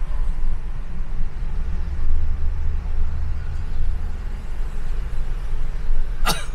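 Steady low rumble of a car driving on a city road, with one sharp click about six seconds in.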